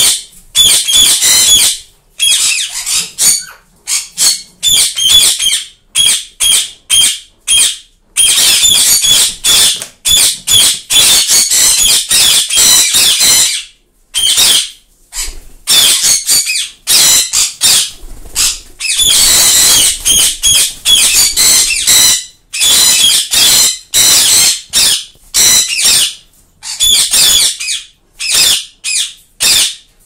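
Ringneck parrots calling in rapid strings of short, high-pitched calls, bursts of a second or several seconds separated by brief pauses.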